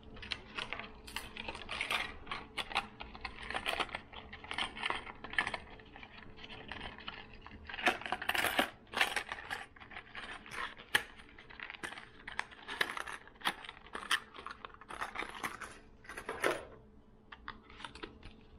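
Hands handling fishing lures in hard plastic blister packaging: irregular clicks, taps and crinkles of plastic, with a cluster of louder ones about eight seconds in.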